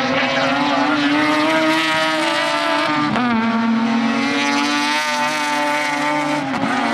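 Mazda RX-7 race cars' 13B rotary engines running hard through a corner, more than one car heard at once. The engine pitch climbs, drops sharply about three seconds in, climbs again and drops once more near the end.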